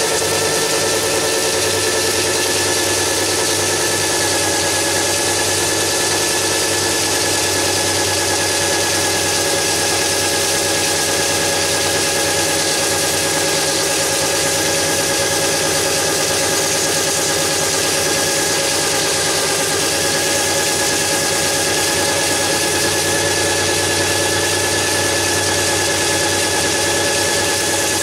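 Electric drill driving a homemade belt-sharpening rig, its motor running at a steady speed with a constant whine over the hiss of the running abrasive belts.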